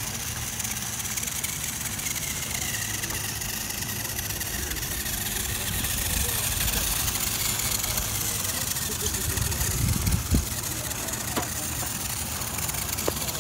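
Wind rumbling on the microphone over a faint wavering whine from a small electric RC rock crawler's motor and gears, with a few light knocks about ten seconds in.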